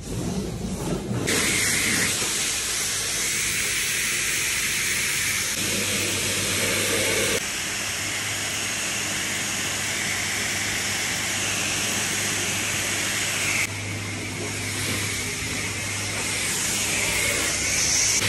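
High-pressure water jet from a self-serve car wash spray wand blasting the car's body and windows: a steady hiss that builds up about a second in and shifts abruptly twice.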